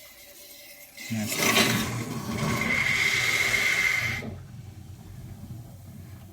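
Flush water rushing out of a hose during the cleaning of an HVAC unit's water strainer, carrying out black debris. It surges loudly for about three seconds, with a steady high whistle in the second half, then drops to a quieter steady flow.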